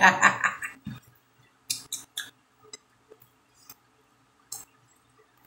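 Fingers picking at a pizza's toppings and crisp crust close to the microphone: a handful of short, scattered crackles and clicks over a few seconds.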